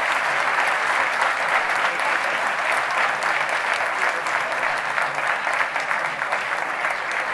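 Large audience applauding: dense, steady clapping that eases off slightly toward the end.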